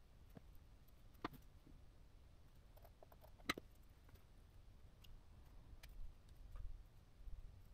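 Near silence with a few faint, sharp clicks of tweezers and small electronic parts being handled; the loudest click comes about three and a half seconds in.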